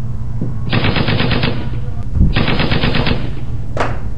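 Two short bursts of rapid automatic gunfire, each under a second long, less than a second apart, over a steady low hum.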